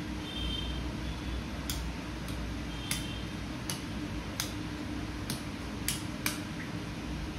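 About eight sharp, short clicks at uneven intervals of roughly half a second to a second, over a steady low background hum.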